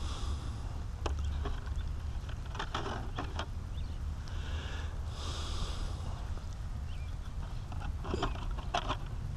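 Steady low wind rumble on the microphone, with a few light clicks and taps of hands and a knife on the frame of an Align T-Rex 550E electric model helicopter. Two hissy breaths come through near the microphone, one at the start and a longer one about five seconds in.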